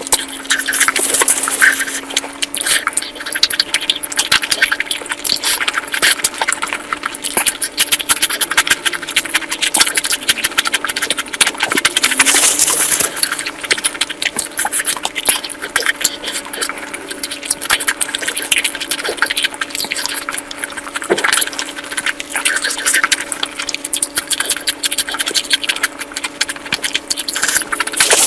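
Close-miked eating of curry, chewing and smacking as a dense run of quick clicks and crackles, over a steady low hum.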